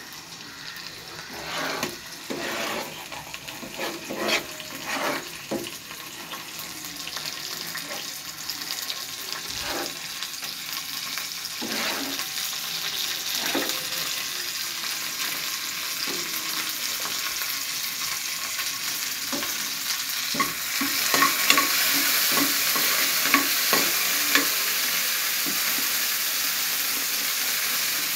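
Cashew nuts, almonds and raisins frying in ghee in a nonstick pan: a steady sizzle that builds and gets louder, rising further about two-thirds of the way in, with small crackles. In the first half there are scattered clicks and scrapes of stirring in the pan.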